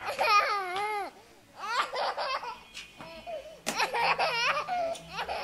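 A young child laughing and squealing in high, swooping bursts, with a couple of short knocks a little past halfway.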